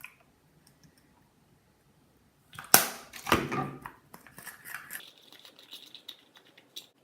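Glue, baking soda and contact-solution slime being stirred in a cup. Two sharp, loud noises come half a second apart a little under three seconds in, followed by a run of small sticky clicks and crackles as the mixture is worked.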